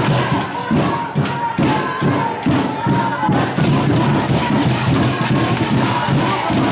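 Loud music with a steady thumping beat, about two beats a second, over crowd voices.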